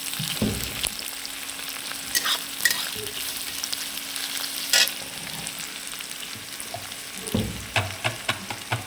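Mixed vegetables frying and sizzling in a pan while being stirred, with a spoon clicking and knocking against the pan now and then, several times in quick succession near the end.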